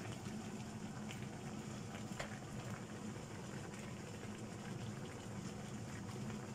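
Chicken pieces cooking in their own juices in a frying pan: a steady simmering sizzle with a few small pops, over a low steady hum.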